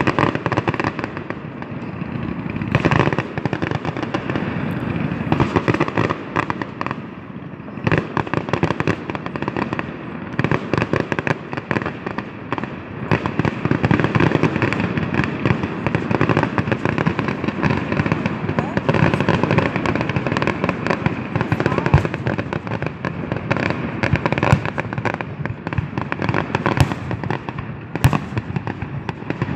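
Fireworks going off in a dense, continuous crackle of many rapid pops, with sharper single bangs standing out now and then.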